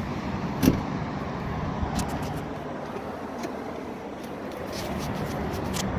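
A motor vehicle running: steady engine and road noise, with a sharp thump about two-thirds of a second in and a few light clicks.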